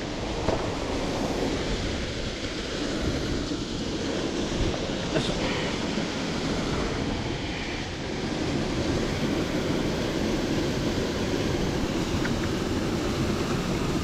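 Small mountain stream rushing steadily, an even, fairly loud wash of flowing water, with a couple of brief faint knocks.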